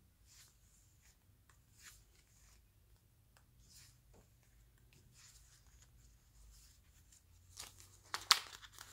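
Paper pages of a planner insert being flipped through, faint soft rustles every second or so; near the end, louder crisp paper handling with a sharp tap as the insert is lifted out of its leather cover.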